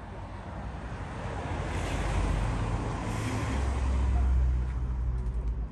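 A car passing, its tyre noise and low engine hum growing louder to a peak about four seconds in.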